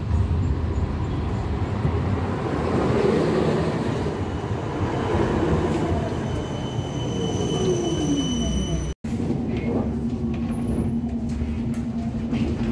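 Tram running with a loud rumble and a falling whine as it slows. It breaks off about nine seconds in, then a steady low motor hum.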